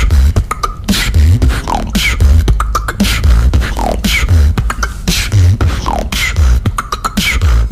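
Beatboxing: a vocal beat of deep bass kicks, sharp clicks and falling swept tones. The pattern repeats about every two seconds.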